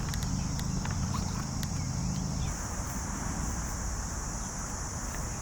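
Scattered light clicks and taps, likely from cable and panel handling, over a steady high buzz of crickets. A low rumble eases off about two and a half seconds in.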